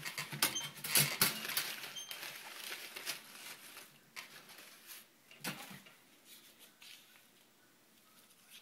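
Paper raffle tickets rustling and clicking as hands rummage inside a perforated metal raffle drum, densest in the first two seconds, then a ticket pulled out and unfolded with a few quieter crinkles.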